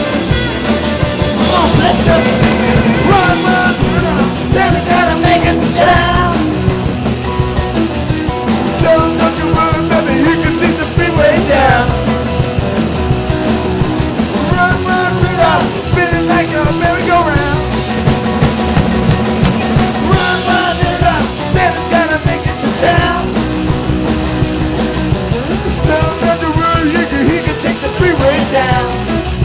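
Loud rock band music with singing.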